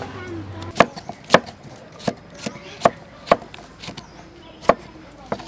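A kitchen knife chopping cucumber on a thick wooden chopping board: about eight sharp knocks at uneven intervals, starting about a second in.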